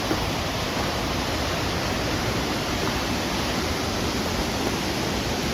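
Waterfall rushing steadily, a constant even noise of falling water.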